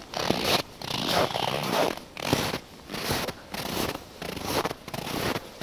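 Footsteps crunching on snow at a steady walking pace, about two steps a second, very loud.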